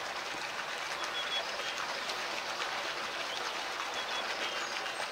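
Pool water splashing and lapping as a swimming polar bear stirs it: a steady wash of water noise.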